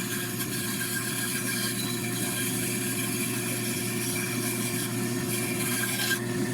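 Bandsaw running at a steady hum while cutting out a small wooden drawer handle.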